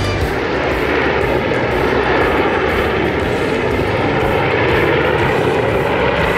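DJI Mini 2 quadcopter's propellers whirring steadily in flight, a loud even whirr without changes in pitch.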